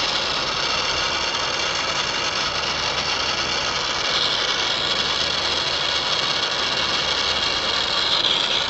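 Oxy-fuel brazing torch flame hissing steadily while heating copper pipe joints on a compressor. The hiss brightens about four seconds in and again near the end, over a faint low hum.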